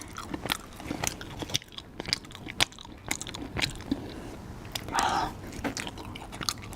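A person eating close to the microphone: biting and chewing with many sharp crunchy clicks, and a brief louder noise about five seconds in.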